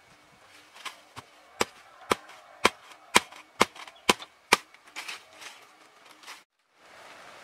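A tool chopping wood in a series of sharp strikes, about two a second. Seven loud blows come in the middle, with lighter ones before and after. The chopping cuts off abruptly near the end.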